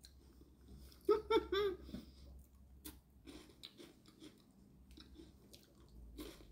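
Crisp rolled wafer stick being bitten and chewed: scattered light crunches, with a short vocal sound about a second in.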